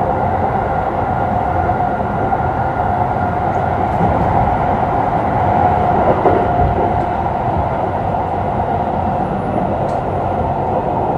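Keikyu New 1000 series electric train running at a steady speed: a continuous rumble of wheels on rail with a steady motor whine.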